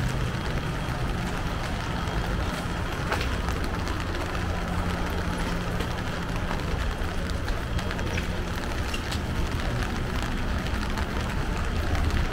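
Rainy city street ambience: a steady low rumble of traffic under a hiss of rain.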